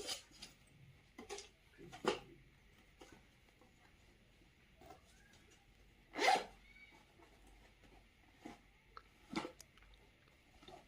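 Toy packaging being handled and opened: a handful of short rustles and scrapes, the loudest about six seconds in.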